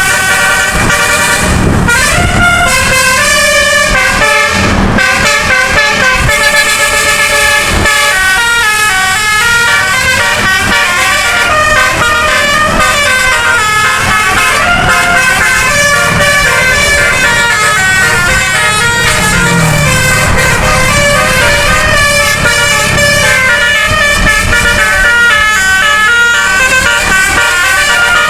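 Bus telolet horn, a nine-trumpet musical air horn, playing quick melodic runs of short notes that step up and down, with several pitches sounding together.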